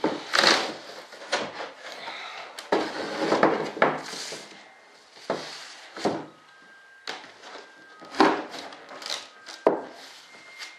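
Fibreglass airframe parts being handled and shifted on a wooden workbench: irregular rubbing and scraping, with a few sharp knocks.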